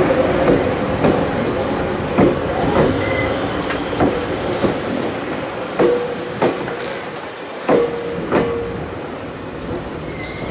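Meitetsu electric train rolling slowly into its terminus, its wheels clacking over rail joints in pairs about every two seconds, over a steady running rumble with a faint squeal tone.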